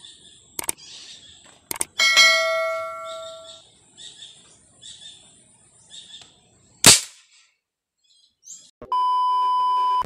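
Marble gun fired up into a tree: sharp snaps, one about two seconds in followed by a ringing metallic clang that fades over a second or so, and a louder sharp crack near seven seconds, with bird chirps in between. Near the end, after a moment of dead silence, a steady electronic tone.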